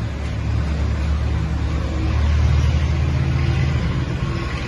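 A motor vehicle engine running: a low, steady hum that grows louder about halfway through, then eases off a little.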